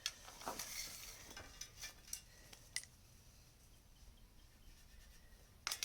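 Faint, scattered metallic clinks and taps from metal pieces and tools being handled, with a few sharper clicks near the end.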